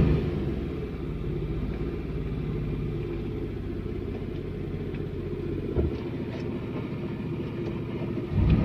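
Car engine running steadily at low revs, with a short knock about six seconds in. The engine grows louder again near the end.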